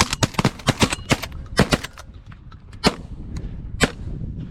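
Several hunters' shotguns firing at flying pigeons: a rapid volley of about ten overlapping shots in the first two seconds, then two more single shots about a second apart.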